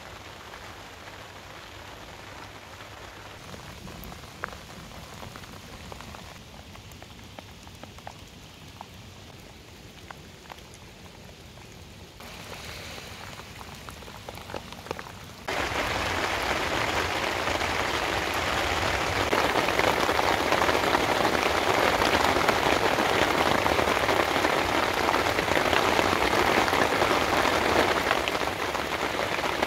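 Thunderstorm rain. At first it is light, with scattered drops; about halfway through it suddenly becomes a much louder, steady downpour.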